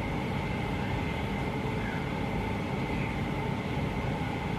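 Steady background hum and hiss with a thin, high, constant whine running through it, like a running household appliance.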